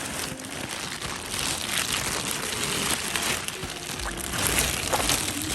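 Background music over a steady, noisy hiss.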